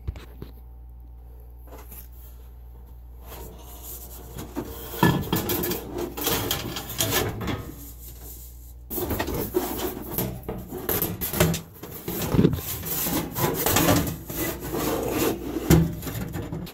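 Close, irregular rubbing and scraping of hands and sheet metal against a wood-stove pipe while a sheet-metal collar is fitted, with clicks and knocks mixed in. A low steady hum comes first; the handling noise starts about five seconds in, breaks off briefly, then resumes.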